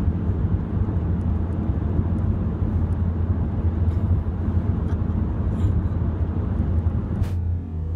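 Car cabin noise while driving on an open road: a steady low rumble of engine and road with tyre and wind hiss. About seven seconds in there is a sharp click, after which the hiss drops out.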